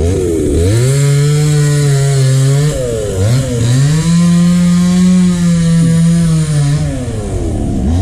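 Two-stroke chainsaw revving: it climbs to full throttle about half a second in and holds, dips briefly near three seconds, climbs again and holds a little higher, then falls back near seven seconds before revving again at the end. This is the saw cutting up fallen tree branches.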